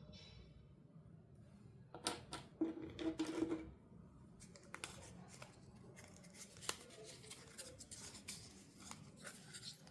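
Close-up handling noises from unboxing a toy doll: a flurry of sharp clicks and rustling about two seconds in, then scattered lighter clicks and rustles.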